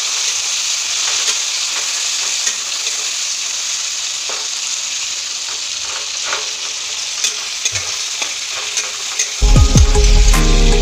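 Chopped tomatoes sizzling in hot mustard oil in a metal kadai, stirred with a metal spatula that clicks and scrapes against the pan now and then. About nine and a half seconds in, background music starts, louder than the frying.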